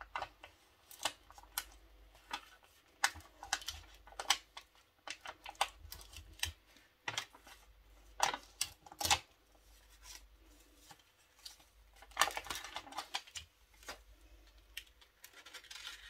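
Vinyl transfer tape and its backing sheet being handled, rubbed down and peeled: scattered crackles, scrapes and ticks, with a denser run of crinkling about twelve seconds in.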